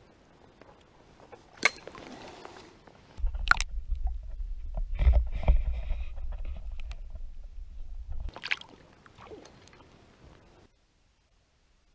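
Stream water splashing as a hand and camera go under the surface to release a brook trout. This is followed by a muffled deep rumble of water against the submerged camera for about five seconds, and another splash as it comes back out.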